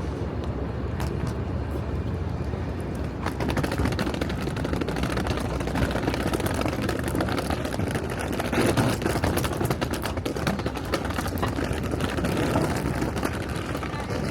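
Steady street traffic noise, with cars going by and scattered clicks and knocks.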